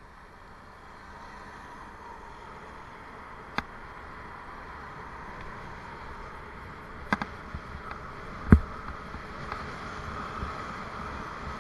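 Riding noise of a Raleigh Mustang Elite adventure bike on a road with traffic, picked up by a bike-mounted camera: a steady rush of wind and tyres that grows a little louder. Through it come a few sharp knocks, the loudest about eight and a half seconds in.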